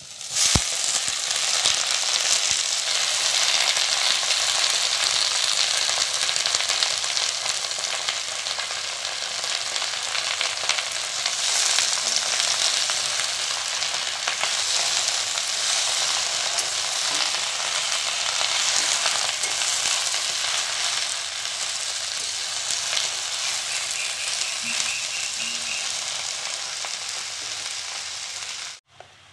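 Chopped taro leaves dropped into hot mustard oil in a kadai, setting off a loud, steady sizzle of oil frying under the leaves. It starts suddenly, eases off slowly and cuts off abruptly near the end.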